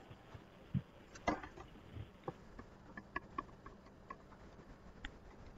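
Faint, irregular clicks and taps, about a dozen, the sound of small objects being handled near the microphone.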